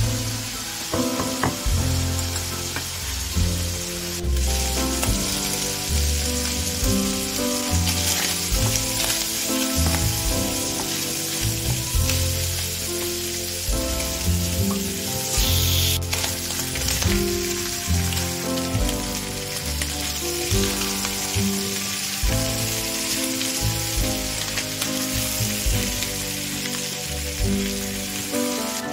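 Diced bacon and sliced garlic sizzling in a frying pan, stirred with a wooden spoon, over background music.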